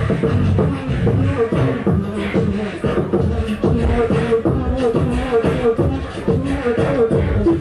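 Live beatboxing into handheld microphones: a steady, rhythmic beat of vocal kicks and snares with a pitched vocal line running over it.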